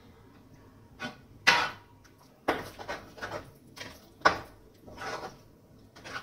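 A spoon knocking and scraping against a heavy-bottomed kadai as thick rice-flour batter is stirred, in irregular strokes every half second to a second.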